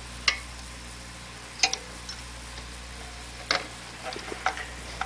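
A handful of sharp clicks and light knocks, irregularly spaced, as the oscilloscope's CRT tube and its metal parts are handled and slid into the camera support, over a steady low hum.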